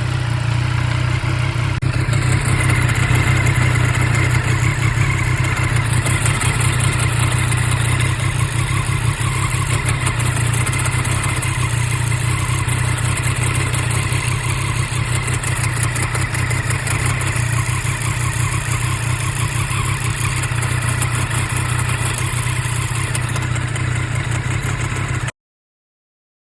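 Triumph Street Triple RS 765's inline three-cylinder engine idling steadily in neutral, with a grinding clatter over the engine note. The owner says this grinding goes away when the clutch lever is pulled. The sound cuts off abruptly near the end.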